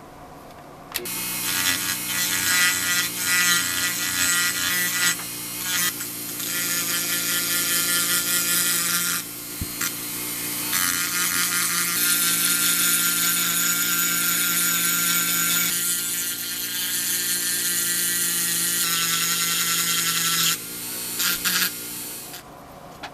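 Electric power tool running with a steady motor pitch and a harsh, hissing working noise. It starts about a second in, dips briefly twice and stops near the end.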